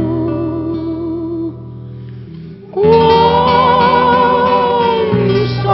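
A slow song: one voice holds a long sung note over a steady low accompaniment. It falls away about halfway through, then comes back strongly with another long note wavering in pitch.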